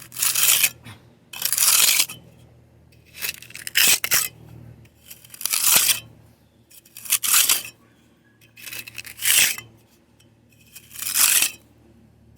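About eight short, harsh rasping strokes, one every second and a half or so: a hand tool scraping at concrete.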